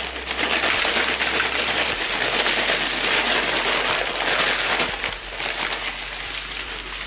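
Doritos tortilla chips pouring from their bag onto a foil-lined baking sheet: a dense rapid clatter of chips on foil with the bag crinkling, easing off a little toward the end.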